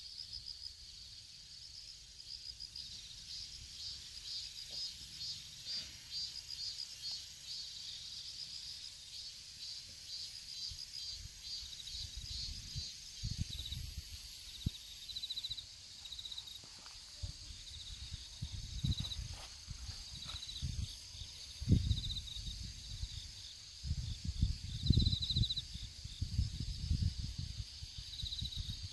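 Autumn field insects, crickets among them, chirping in steady pulsed trills, with short high trills coming and going from about halfway. Low, irregular rumbles, the loudest sounds, come in more and more often through the second half.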